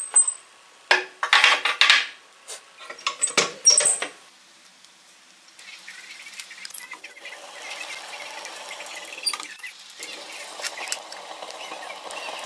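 Pieces of scrap iron clanking and clinking against each other as they are handled, with a run of sharp metallic knocks in the first four seconds. After that comes a fainter, steady crackling noise.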